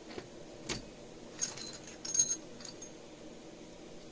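Small steel gunsmith's punches clinking and rattling against each other as they are picked through. There is one knock just under a second in, then two short bursts of ringing metal clinks, the louder one a little past two seconds in.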